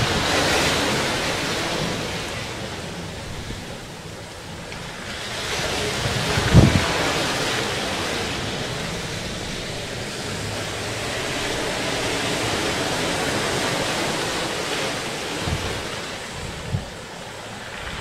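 Ocean surf breaking and washing over a rocky shore, swelling and fading every few seconds, with wind buffeting the microphone in a few short low thumps.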